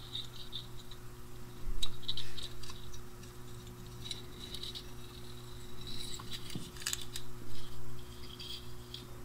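Light scratching and scattered small clicks of fingers and needle-nose pliers working at the opened metal electrode assembly of a 6L6G beam pentode tube, over a steady low hum.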